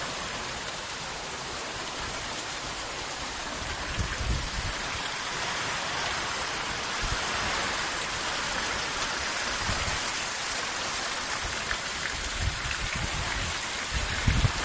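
Heavy rain pouring down in a windstorm, a steady hiss of falling water. A few brief low rumbles of wind gusting on the microphone break in now and then.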